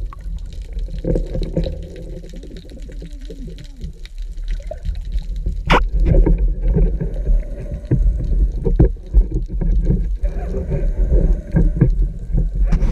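Underwater handling noise from a speargun-mounted camera: a low rumble with water swishes and small knocks, a single sharp click a little before the middle, then busier, louder knocking and rustling as the gun swings about.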